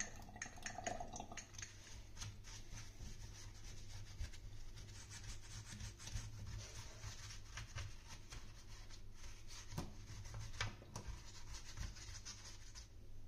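Small brush scrubbing a wet, foamy circuit board: a faint, quick scratching and rubbing of bristles over the components, over a low steady hum.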